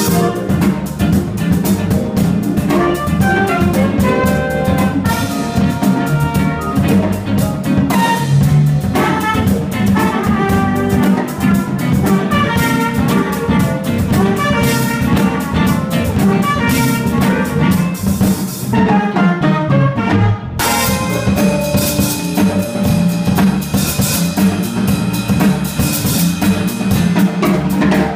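Live jazz-funk band playing: a trumpet melody over electric guitar, electric bass, drum kit and electric keyboard, with a tenor saxophone in the horn line. About two-thirds of the way through, the cymbals and high end cut out for a moment in a short break, then the full band comes back in.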